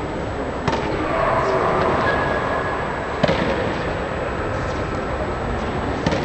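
Tennis ball struck by a racket, three sharp pops about two and a half seconds apart, over the steady background noise of an indoor court.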